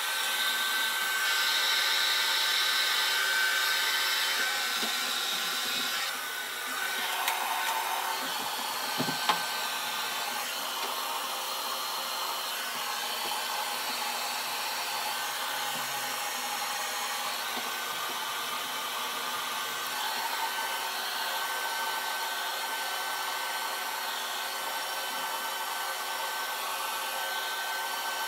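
Handheld hair dryer blowing steadily, with a thin steady whine over the rush of air, a little quieter after about six seconds. A couple of light clicks come partway through.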